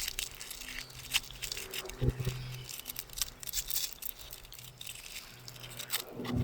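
A pry bar working under asphalt roof shingles, scattered clicks and scrapes as the shingles' sealant bond is broken loose, over a faint low hum.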